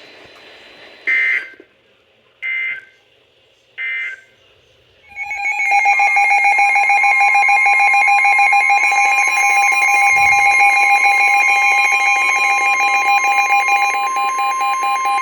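Emergency Alert System alert tones on a NOAA Weather Radio broadcast: three short data-burst header tones about a second and a quarter apart, then, about five seconds in, a loud steady two-tone attention signal that holds for about ten seconds. They announce a severe thunderstorm warning.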